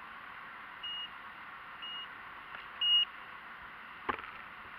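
Three short beeps at one high pitch, about a second apart, the third the loudest, over a steady hiss. About four seconds in, a sharp click followed by a brief rattle.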